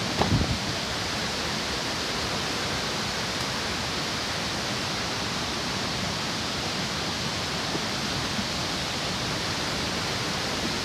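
Steady rushing of flowing water, with a brief low thump a fraction of a second in.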